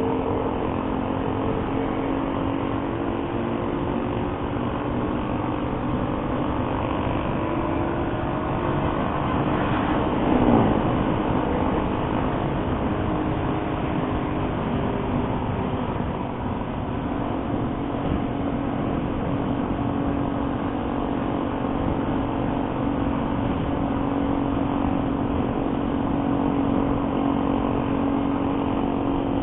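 Motorcycle engine running at a steady cruising speed, under a steady rush of noise. About ten seconds in, a passing vehicle swells briefly and drops in pitch as it goes by.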